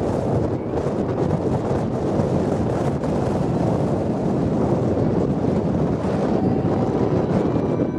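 Wind buffeting the microphone: a steady, rough noise without any pitch.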